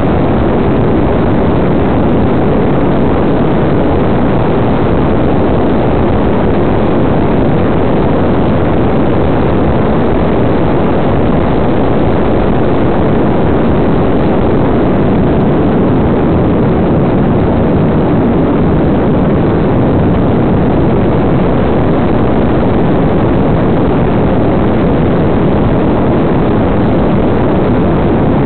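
Steady loud rush of airflow and propeller noise from an electric RC Funflyer model plane in flight, picked up close by the microphone of its tail-mounted onboard camera, with wind buffeting the microphone.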